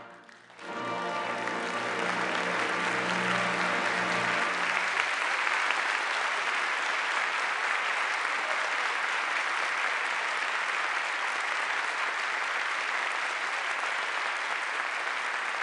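A concert hall audience applauding, starting within a second after the orchestra's final chord cuts off and holding steady.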